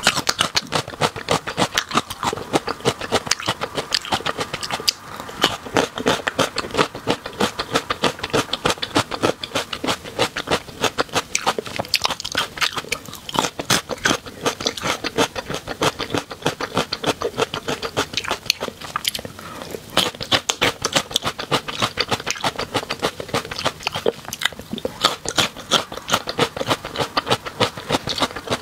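Close-miked crunchy chewing and biting of small green oval morsels: a dense, continuous run of crisp crunches and crackles.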